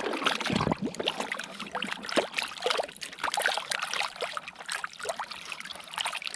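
Water trickling and splashing in quick, irregular little splashes, as a toy truck is rinsed clean in water.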